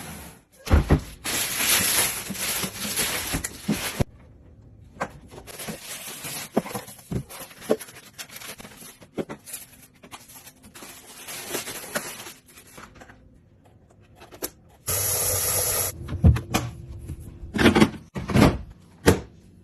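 Irregular scraping, rustling and sharp knocks, with a brief steady whir lasting about a second around fifteen seconds in.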